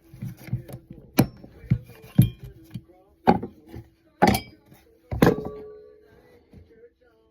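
Metal parts from a dismantled fan being tossed onto the iron shred scrap pile: about five sharp clanks, roughly one a second, the last one ringing on briefly.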